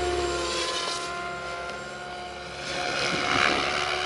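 Radio-controlled helicopter flying, its rotor and motor giving a steady whine with a rush of blade noise, growing louder about three seconds in as it comes closer.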